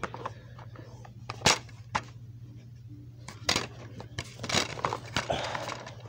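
Plastic DVD cases being handled: a series of sharp clicks and clacks as a case is snapped open and cases are picked up and set down, with a brief rustle near the end. A steady low hum runs underneath.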